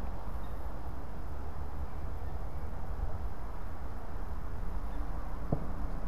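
Steady low rumble of outdoor background noise, with one brief click about five and a half seconds in.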